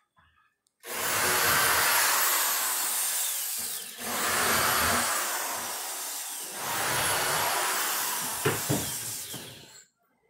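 Cordless drill running into wooden shelf boards in three long runs of a few seconds each, the motor rising and falling in pitch within each run.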